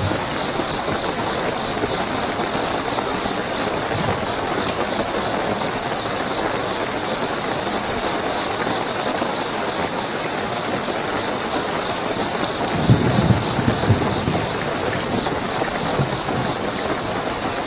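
Heavy, steady rainfall with a continuous high cricket trill behind it. A low rumble of thunder swells briefly about thirteen seconds in.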